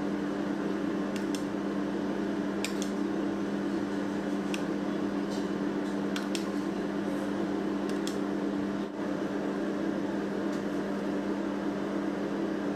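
Steady low machine hum, with a few faint light clicks scattered through it.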